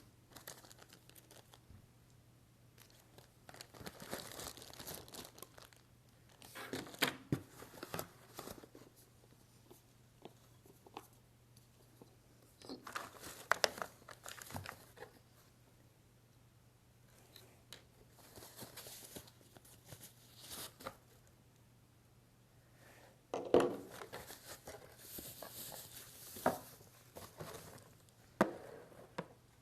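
Plastic packaging of a filtered shower head being crinkled and torn open, in separate bursts of rustling with a few sharp clicks, the loudest about two-thirds of the way through.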